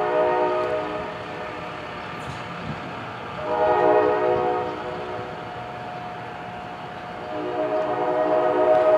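Approaching electric commuter train sounding its multi-note air horn in separate blasts: one ending about a second in, a shorter one around the middle, and a long one starting near the end.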